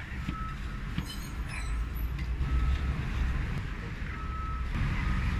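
Low rumble of a vehicle passing on the street, growing louder after a couple of seconds, with a few faint short squeaks. Background music comes in near the end.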